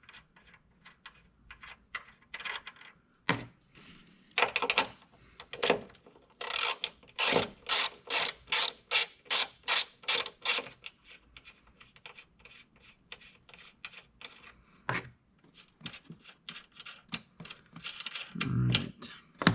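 Hand ratchet wrench clicking in short strokes as it turns the 14 mm strut tower nuts, with a run of about three strokes a second in the middle.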